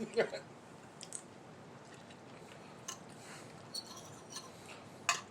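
Faint eating sounds: quiet chewing with a few light, sharp clicks of cutlery and dishes scattered through, the loudest about five seconds in.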